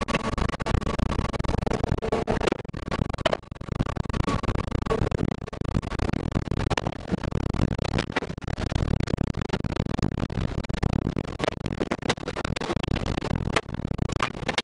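Tornado wind blowing hard around the armored Tornado Intercept Vehicle, a steady rushing noise with many sharp hits of debris striking the vehicle's body and windows.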